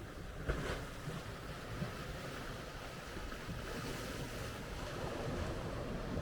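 Sea waves washing on the shore, with wind buffeting the microphone in a steady low rumble.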